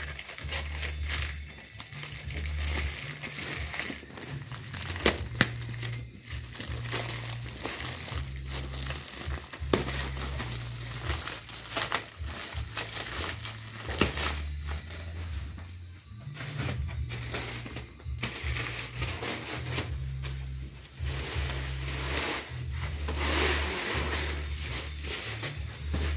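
Clear plastic packaging crinkling and rustling as it is torn open and pulled off a folded playmat, with a few sharp snaps here and there, over background music.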